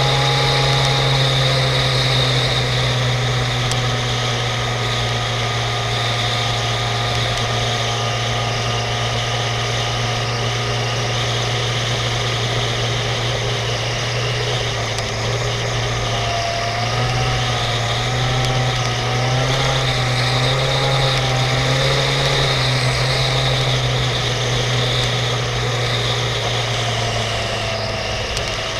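Suzuki GSX-R750 K5's inline-four engine running at a steady cruise on the move, its low steady note under a constant rush of wind and road noise, heard from a camera mounted on the bike.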